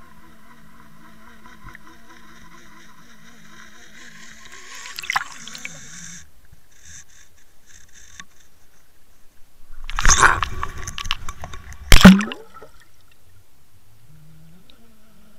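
Underwater camera towed on a fishing line, recording from inside the water. A steady hum stops about six seconds in. About ten seconds in comes a rush of churning water with knocks, ending in one sharp, loud knock. Near the end the hum starts again and rises in pitch.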